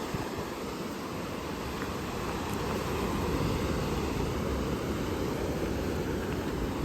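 Wind buffeting the microphone over the steady wash of ocean surf, swelling slightly midway.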